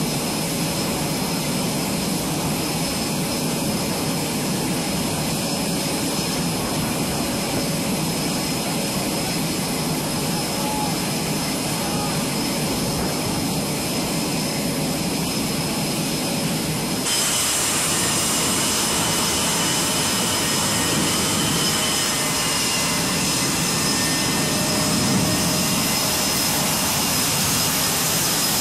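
Jet engines running on an aircraft carrier flight deck: a steady loud noise with a constant high whine. About two-thirds of the way through it changes suddenly to a brighter, hissier whine.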